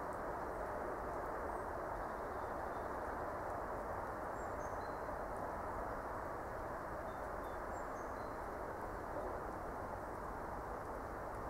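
Steady outdoor background noise, with a few faint, short high-pitched calls of small birds scattered through it.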